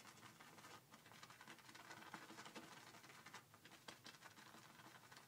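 Faint wet crackling and swishing of a badger shaving brush whipping soap lather in a ceramic bowl, a fast run of tiny ticks as the foam builds.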